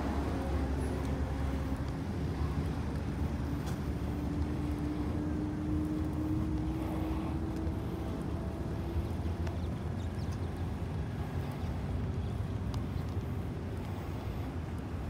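Road traffic: a steady low rumble of passing vehicles, with one engine's hum that rises slightly in pitch and fades out about nine seconds in.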